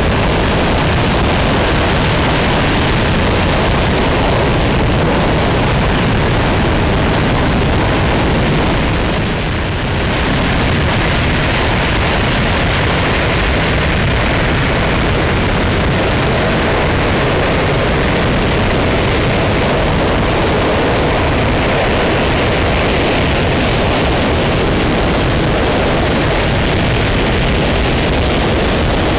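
RS-25 liquid-hydrogen/liquid-oxygen rocket engine firing on a test stand: a loud, steady rushing roar with no distinct tones, dipping briefly about nine seconds in.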